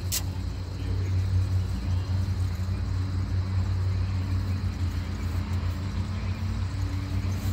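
A boat motor running steadily, a low even hum, with a single sharp click right at the start.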